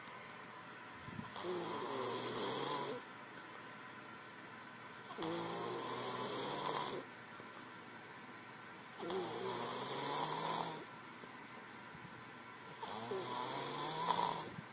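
A man snoring loudly, four long snores about four seconds apart.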